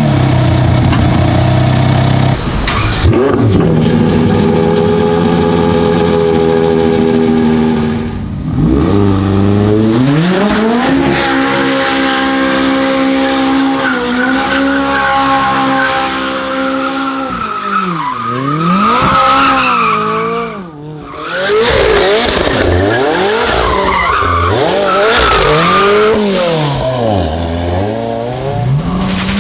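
High-revving supercar engine held at high revs, then swooping down and back up every couple of seconds, with the tyres squealing and skidding under wheelspin.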